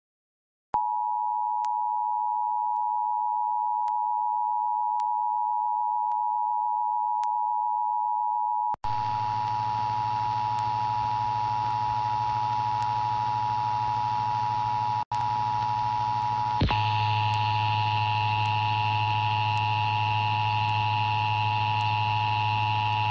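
Emergency Alert System attention signal: the steady two-tone alarm (853 Hz and 960 Hz together), starting under a second in and holding unbroken. From about nine seconds in, a low hum and hiss sit underneath it.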